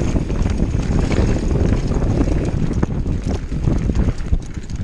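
Mountain bike descending a dirt trail: wind rushing over the action camera's microphone, tyres rolling on the dirt, and many quick rattles and knocks from the bike over bumps.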